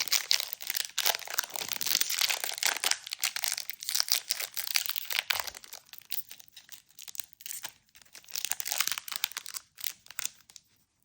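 A trading-card pack wrapper being torn open and crinkled by hand: dense crackling for the first six seconds or so, then thinner crackles with one more flurry, fading away near the end.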